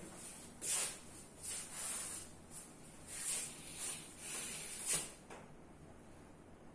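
Footsteps of a person walking away: a series of about eight soft scuffing steps, roughly one every half to two-thirds of a second, ending about five seconds in.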